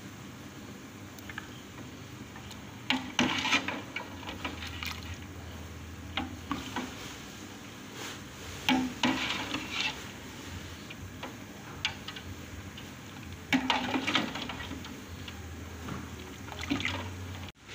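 A ladle stirring a pot of bone-broth soup, with short sloshes and splashes and occasional clinks against the metal pot every few seconds.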